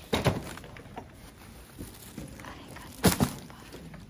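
Two short thumps, about three seconds apart, over low background noise.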